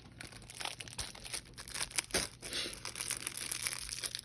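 Crinkling and tearing of a screen-protector kit's wet cleaning-wipe sachet being handled and opened: a faint scatter of small rustles and clicks.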